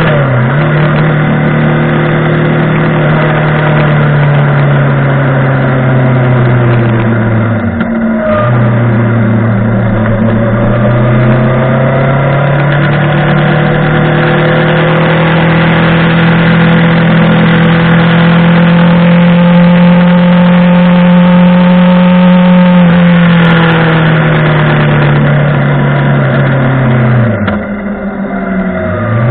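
Montana XR5 motorcycle's engine and exhaust running under way, loud and steady. The engine note drops sharply and climbs back twice, about eight seconds in and near the end.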